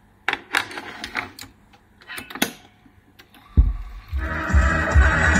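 Clicks and clatter from the Arfa 27A-10 airliner tape cartridge player's mechanism as it is closed up and switched on, then a thump about three and a half seconds in. About four seconds in, music starts playing from the tape cartridge, with a steady low beat.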